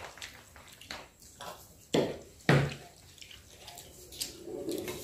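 Wet eating sounds of dal, rice and egg curry close to the microphone, with two louder wet mouth sounds about two and two and a half seconds in.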